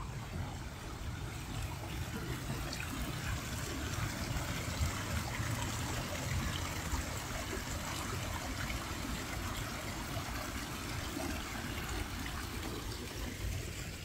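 Running water, a steady rushing splash that swells in the middle and fades slightly near the end, over a low rumble.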